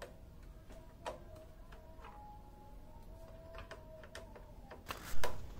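A screwdriver tightening screws into a scooter's plastic headlamp housing: faint scattered clicks, with a louder knock about five seconds in.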